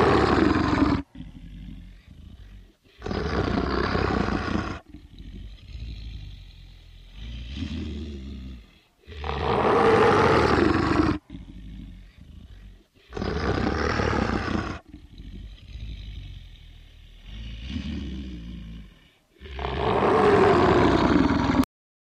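Werewolf growl sound effect: five loud, drawn-out monster growls, each about two seconds long and a few seconds apart, with quieter, lower growling in between. It stops abruptly just before the end.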